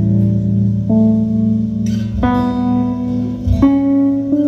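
Acoustic guitar and keyboard playing a slow instrumental passage, with held chords changing about every second and a half.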